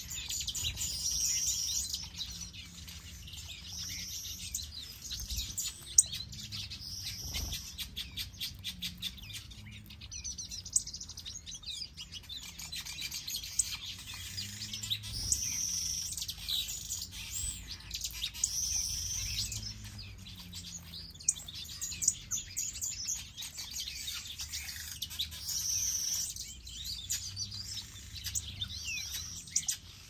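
Small aviary finches, among them major goldfinches and long-tailed finches, chirping and twittering in a steady stream of short high calls and trills, with a few sharp clicks.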